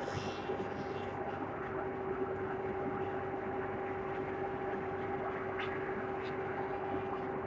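Wood moulding machine (four-sided planer) running steadily: an even mechanical noise with a steady humming tone and no breaks.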